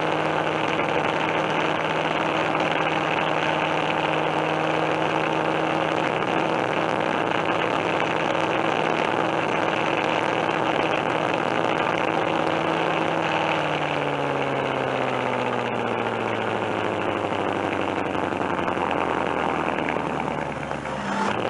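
Coin-operated kiddie bulldozer ride running with a steady mechanical drone. About two-thirds of the way through the pitch drops lower, and it stops shortly before the end.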